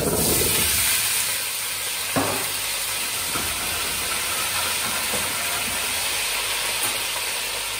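New potatoes sizzling in hot olive oil with garlic cloves in a stainless steel pot, a steady hiss that is loudest in the first second, just as the potatoes go in. A single knock about two seconds in.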